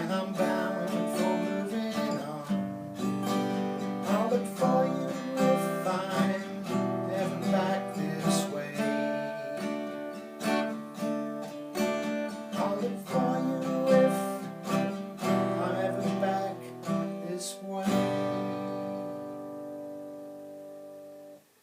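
Acoustic guitar strumming chords as an instrumental outro, ending on a final chord that is left to ring and fade about eighteen seconds in.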